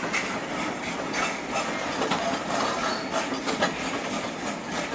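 Freight wagons rolling past at close range: steel wheels running on the rail with a steady rumble and rattle, broken by frequent irregular metallic clicks and clanks.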